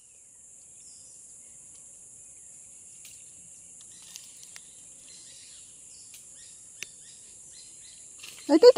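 Steady high-pitched drone of rainforest insects, with a few faint clicks. Near the end a person's voice breaks in loudly.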